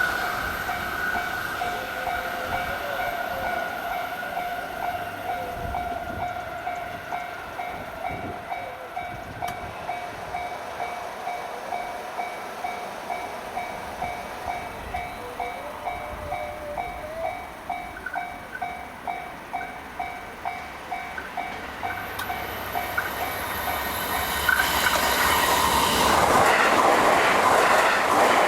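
Japanese level-crossing warning bell ringing in an even, quick repeating rhythm. About 23 seconds in, the noise of an approaching electric train rises, and the train passes at high speed near the end, drowning out the bell.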